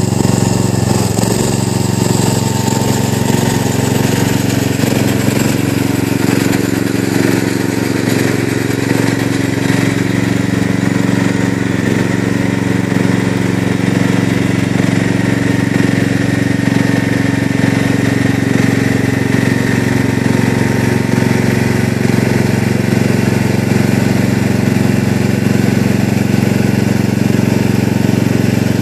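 Gravely 8163B garden tractor's engine running, its pitch wavering a little in the first few seconds and then holding steady.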